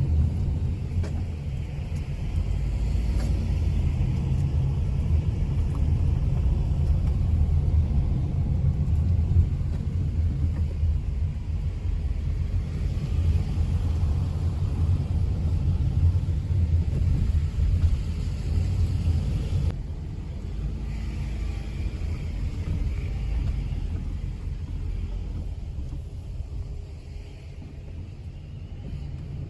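Steady low rumble of a moving vehicle, dropping somewhat quieter about twenty seconds in.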